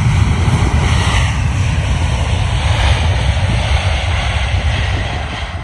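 Loud, steady low rumble and hiss of a four-engined Boeing 747 freighter's jet engines as it rolls out on a wet runway after landing, throwing up heavy spray. The sound eases off a little near the end as the jet moves away.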